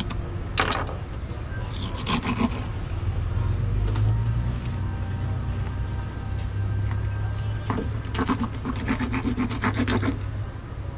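A fillet knife scraping and slicing along the skin and rib bones of a large African pompano, in short scratchy bouts about half a second in, around two seconds in, and again from about eight to ten seconds in. A steady low rumble runs underneath.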